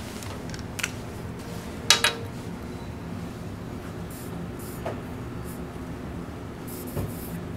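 Red dry-erase marker writing letters on a whiteboard: short, faint stroke sounds from about four seconds in. A sharp click comes about two seconds in, all over a low steady room hum.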